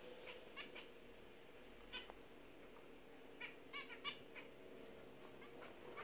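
Zebra finches giving short calls, about ten in all, with several in quick succession a little past halfway.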